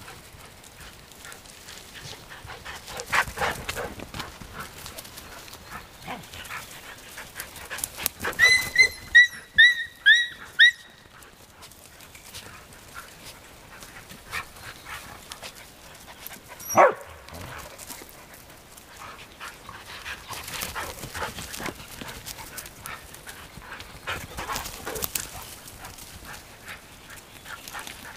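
Samoyed puppies and adult dogs playing, with paws scuffling through dry twigs and needles. About a third of the way in comes a quick series of about six short, high-pitched yelps, and a little past the middle one sharp yelp.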